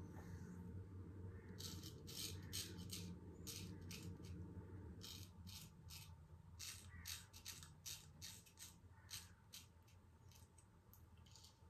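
Damascus-steel straight razor scraping through a day's stubble on a lathered face: a run of short, faint strokes, irregularly spaced, beginning about two seconds in.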